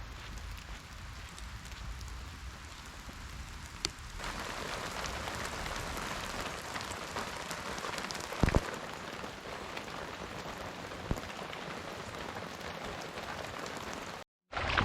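Steady rain falling, growing louder and brighter about four seconds in, with a single sharp knock about halfway through.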